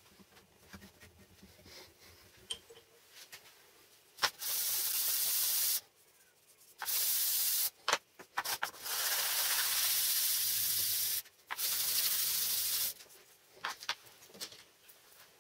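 A small metal plate rubbed by hand back and forth on a sheet of sandpaper laid flat on a board. It makes a hissing scrape in several long strokes of one to two seconds each, from about four seconds in until about two seconds before the end, with light clicks of handling between strokes.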